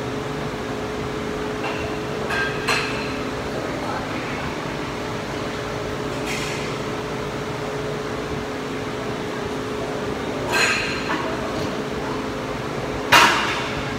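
Steady hum of a ventilation or air-conditioning system in a gym, broken by a handful of sharp knocks and clanks of equipment, the loudest near the end.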